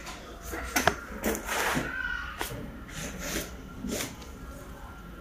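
Scattered light clicks and knocks of handling at a workshop bench, the sharpest a little under a second in, with a brief rustle and a short squeak about two seconds in.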